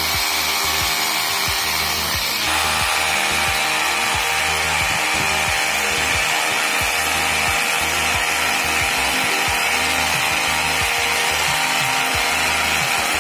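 Rotary hammer drill boring a hole into the underside of a concrete slab, running steadily with a rapid hammering rattle. It gets a little louder about two and a half seconds in.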